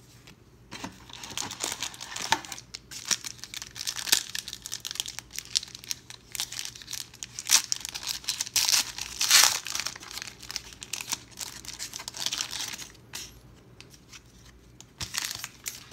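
Foil wrapper of a 1992 Pro Set NFL football card pack crinkling as it is handled and torn open, with the loudest tearing around the middle. A short bout of crinkling follows near the end.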